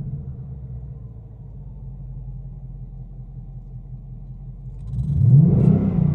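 2018 Mustang GT's 5.0-litre V8 through its stock exhaust, heard from inside the cabin. The revs drop back to a low idle, then near the end the engine is blipped again, the pitch rising quickly and falling back.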